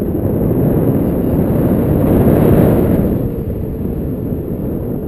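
Wind buffeting the action camera's microphone in flight on a tandem paraglider: a loud, low rush that swells a little past the middle and eases near the end.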